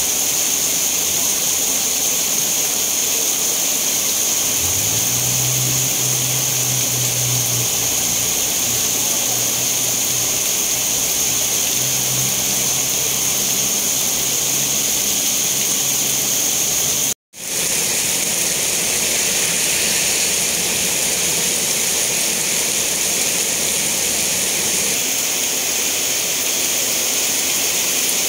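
Heavy rain pouring down in a steady, dense hiss. A faint low hum sits under it for a stretch in the first half, and the sound cuts out for an instant about two-thirds of the way through.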